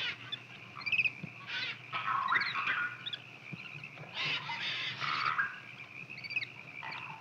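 Rhesus macaques giving short squeals and chirping calls, a few of them in quick bursts, over a steady high-pitched drone.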